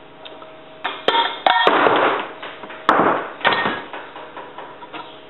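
Metal parts of a torn-down Tecumseh lawn mower engine knocking and scraping as they are handled, with several sharp clinks that ring briefly, most of them between about one and three and a half seconds in.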